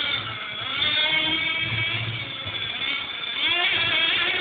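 Hong Nor X2 RC buggy's small high-revving engine running on the track, its pitch rising and falling with the throttle, with a sharp rev-up about three and a half seconds in.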